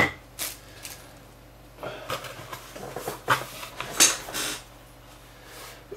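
Hands setting a small die-cast and plastic model ship down on a wooden desk, then rummaging through a cardboard box and clear plastic packaging: a scatter of light clicks, taps and rustles, the loudest about four seconds in.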